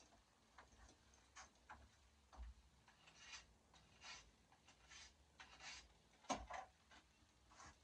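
Raccoon being skinned: a series of faint, irregular short scraping and ripping strokes as the hide is pulled and knifed free of the carcass, with one louder knock about six seconds in.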